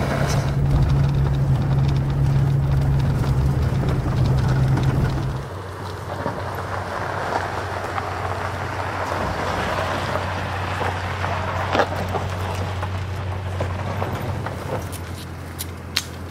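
A steady low machine hum, then about five seconds in a pickup truck's engine running with a lower, steady drone. A few light clicks come near the end.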